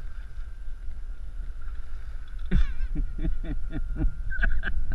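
Wind rumbling on the camera microphone over a small boat, with a thin steady high whine throughout. From about halfway, a man's voice gives a quick series of short falling calls.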